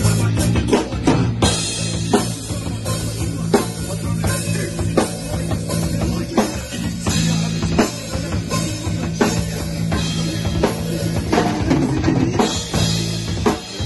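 A rock drum kit played hard, kick, snare and cymbals in a steady beat, together with an electric bass guitar holding low notes: a band rehearsing live.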